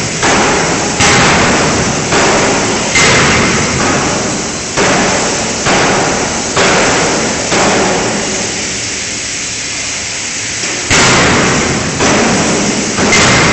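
A 5-ton fully hydraulic closed-die forging hammer striking forgings in its dies. The blows are heavy and come roughly once a second, with a pause of about three seconds partway through. Each blow rings off and fades before the next.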